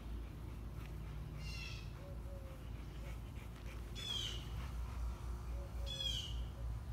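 A bird calling about every two seconds, each call a short run of high notes falling in pitch, over a steady low hum.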